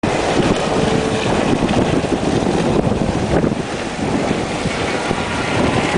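Wind buffeting the microphone over the rush of water churning in the wake of a sailing yacht under way.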